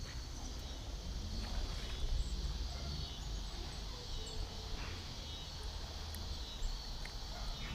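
Outdoor background noise: a steady low rumble with a faint high hiss and a few small clicks.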